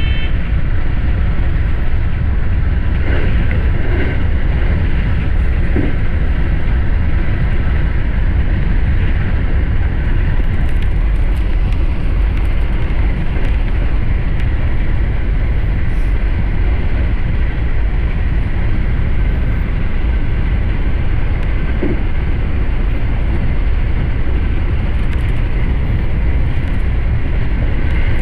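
Steady running noise of an electric commuter train at speed, heard from inside the front car: a constant low rumble of wheels on rail, with a few faint knocks.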